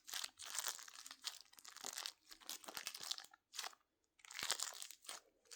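A homemade squishy filled with clay or slime, squeezed and handled in the hands: a run of irregular crinkling, crunching noises with a couple of brief pauses.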